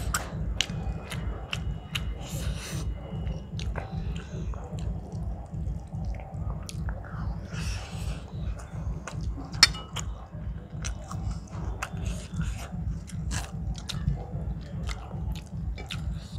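Close-miked chewing and eating by hand: rice and fish being chewed, with a steady rhythmic low chewing pulse and frequent wet mouth clicks and smacks.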